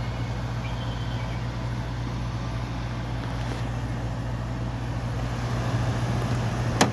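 Amana Cool Zone 5,000 BTU window air conditioner running: a steady low hum from its Matsushita compressor under the rush of its fan, with a sharp click near the end.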